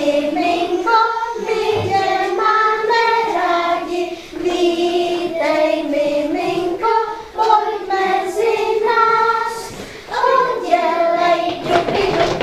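A group of children singing a song together, holding notes and stepping through the melody line by line, with short breaths between phrases.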